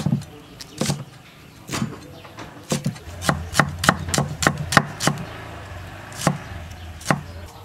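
Cleaver chopping red onion and chilies on a thick wooden chopping block. A few spaced single chops, then a quicker run of about seven chops at roughly three a second in the middle, then two more spaced chops near the end.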